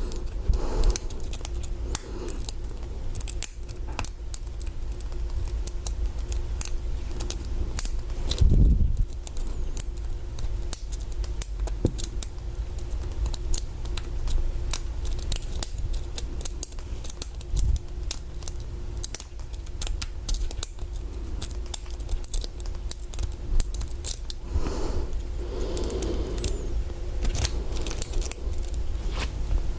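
Irregular small metallic clicks and scraping of a hook pick and tension wrench working the pins inside a Master Lock 140 padlock.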